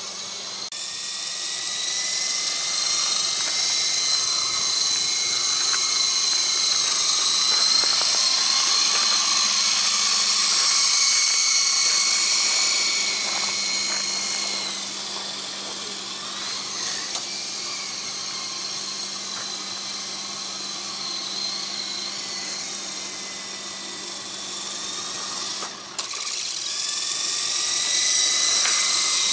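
Syma S37 remote-control helicopter's electric motors and rotors whining in flight: a steady high whine whose pitch shifts as the throttle changes, easing off partway through and dipping briefly near the end.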